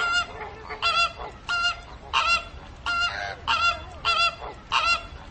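Flamingos honking: a run of short, nasal calls, about two a second, with another bird's call overlapping about three seconds in.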